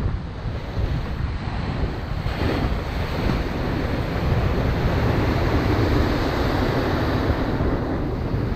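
Ocean surf breaking and washing against rocks and a seawall, with wind buffeting the microphone. The surge swells louder through the middle.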